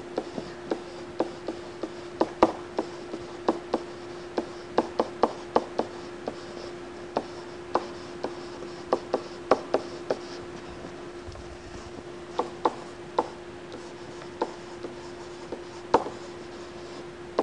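Stylus tapping and scratching on a tablet while words are handwritten: irregular sharp ticks, a few a second with short pauses between them. A steady low hum runs underneath.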